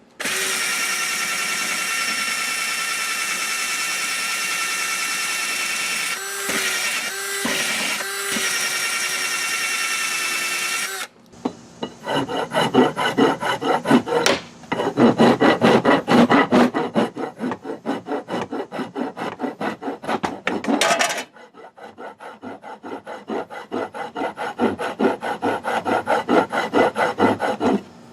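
A small electric power tool motor runs with a steady whine for about eleven seconds, its pitch dipping three times. Then a hand file works the new wooden adze handle to size: quick rasping strokes, about three a second, with a short break about two-thirds of the way through.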